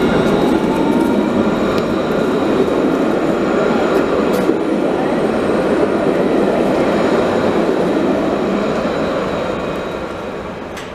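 Alstom Citadis light-rail tram passing close by: a steady rumble of wheels on rail with a high whine of several steady tones above it, fading away over the last few seconds.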